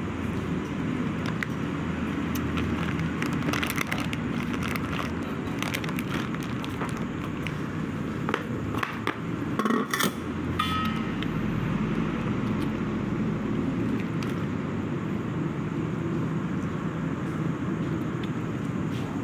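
Steady low background rumble with scattered small clicks and ticks. The clicks cluster about ten seconds in, followed by a brief high beep.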